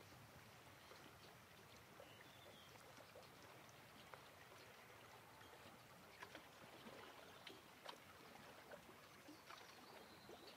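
Faint lapping of seawater against a rocky shore, with scattered small ticks.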